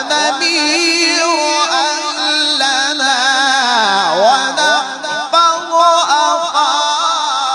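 Mujawwad-style Quran recitation: male voices draw out long, ornamented melismatic phrases that waver up and down in pitch over a steadily held low note, with no distinct words.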